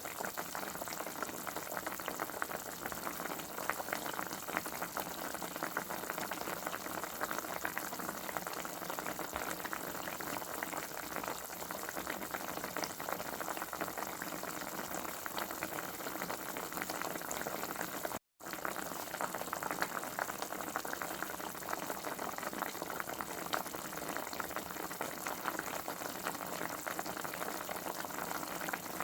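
Food boiling on the stove: a steady, dense bubbling and crackling that cuts out to silence for a split second about eighteen seconds in.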